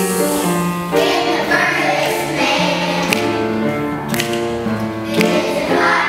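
Children's choir singing a song over instrumental accompaniment, with held notes and a moving bass line.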